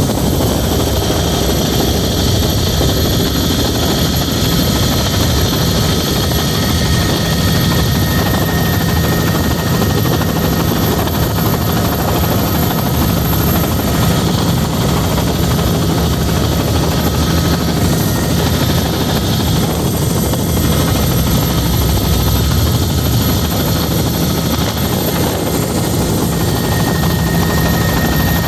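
Helicopter rotor and engine heard from inside the cabin in flight: a loud, steady drone that doesn't change.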